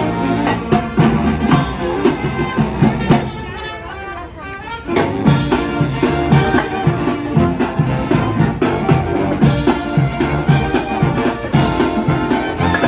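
Music with brass and drums. It thins out and drops in level about three to four seconds in, then comes back in full with a steady beat.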